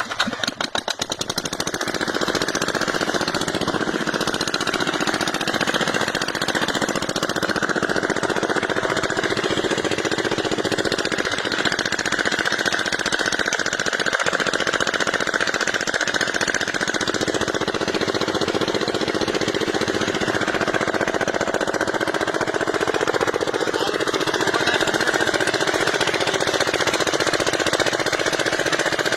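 Diesel engine running steadily with a fast rattling beat, driving three aerators off the one engine.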